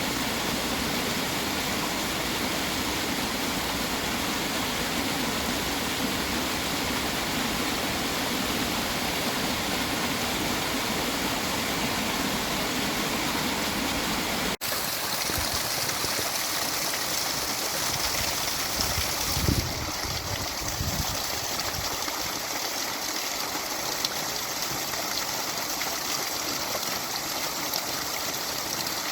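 Natural running water, a stream or small waterfall, rushing steadily. About halfway through it cuts to another stretch of water with a brighter, hissier sound, and a few low thumps come a few seconds later.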